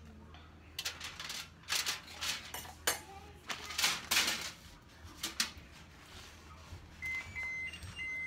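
Aluminium foil and a disposable foil baking pan being handled, with a quick run of crinkles and rattles. Near the end comes a string of electronic beeps that step up and down in pitch.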